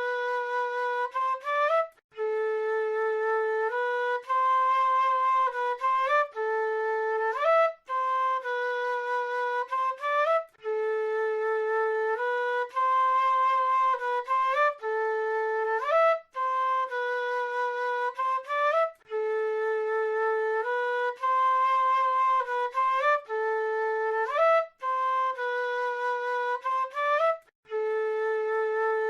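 South American flute playing a slow, repeating melody of held notes, with quick upward slides into higher notes and short gaps between phrases.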